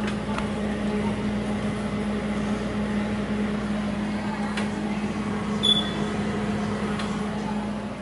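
KitchenAid refrigerator running with a steady hum, a constant low tone under a noisy wash. A short sharp click a little under six seconds in.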